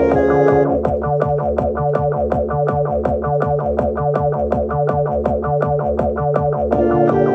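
Instrumental music with a steady beat and a repeating bass line; the higher melody drops out about a second in and comes back near the end.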